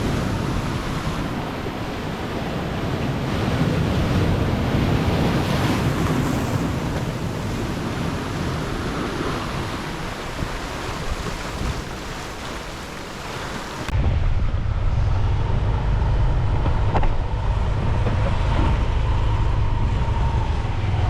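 Steady rush of waves breaking on a beach, then after an abrupt cut, a low engine rumble with wind buffeting the microphone, as from a moving motorbike.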